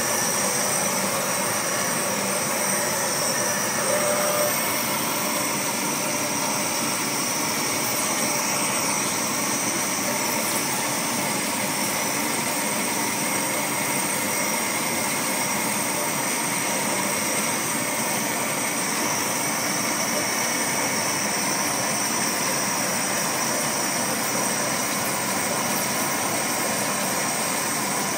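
Laser cutter running while it cuts out lettering: a steady mechanical whir and hiss with two steady high whines.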